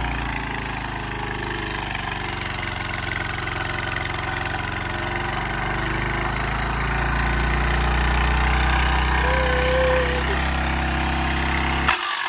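Craftsman pressure washer's small gas engine running steadily, then dying abruptly with a sharp click near the end. It quits after soap was poured into what turned out not to be the soap tank.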